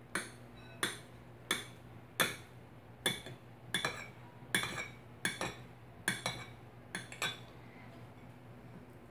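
Knife slicing a banana on a plate, its blade clinking against the plate with each cut, about one clink every 0.7 s and some doubled. The cutting stops about seven seconds in.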